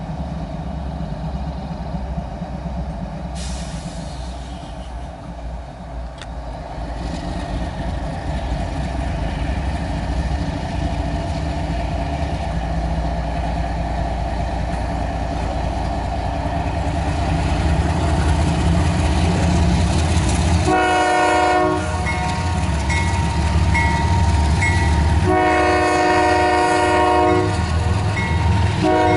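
Approaching CSX GE ES40DC diesel locomotive, its engine rumble growing steadily louder, sounding its air horn for a grade crossing: a short blast about two-thirds in, a longer one near the end, and a third just starting as it ends. A crossing bell dings quietly in the background once the horn begins.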